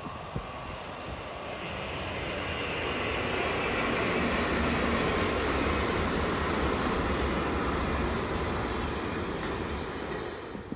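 A train passing on the line, its rumble growing louder to a peak mid-way and then fading.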